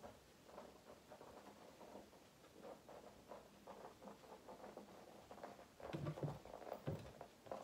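A dog nosing and pushing a plastic Omega Paw Tricky Treat Ball across carpet: faint, irregular tapping and rustling, with a few louder bumps about six seconds in.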